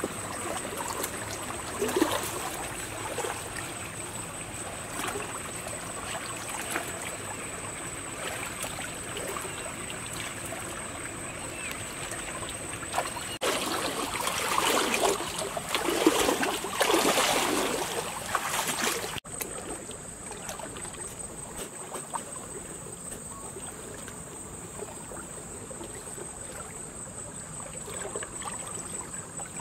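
Water sloshing and splashing as people wade through a shallow stream, loudest for several seconds in the middle and quieter after a sudden break. A thin, steady high-pitched whine runs underneath.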